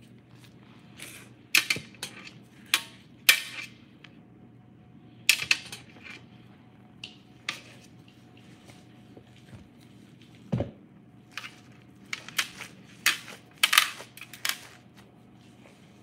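Plastic crinkling and rustling in short, irregular bursts with sharp clicks, as gloved hands handle plastic while setting out raw ground beef; a single dull thump about ten and a half seconds in. A faint steady hum runs underneath.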